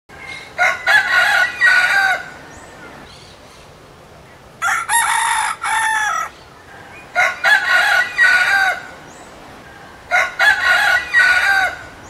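Rooster crowing four times, each a full cock-a-doodle-doo of about one and a half to two seconds, spaced roughly three seconds apart.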